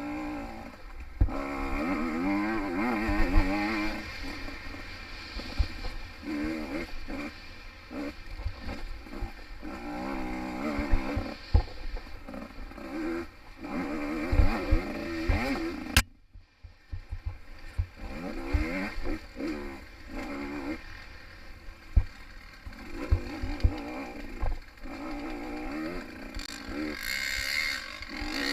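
Small-bore two-stroke enduro motorcycle ridden hard on a rough trail, its revs rising and falling again and again, with short thumps from the bike hitting bumps. Just past the middle a sharp click is followed by about a second of near dropout before the engine comes back.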